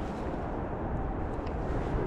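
Steady low rumbling outdoor noise, with a couple of faint ticks about one and a half seconds in.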